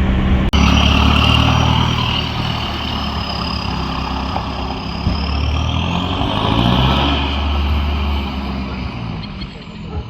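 Nissan Navara D22's ZD30 turbo-diesel running loud through a stainless straight-through exhaust, with a high whistle that climbs about six seconds in and then falls away as the engine note drops near the end.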